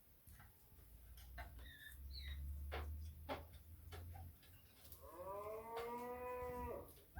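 Animal calls: a few short bird chirps, then one long, drawn-out call of about two seconds that rises at first and then holds level, near the end.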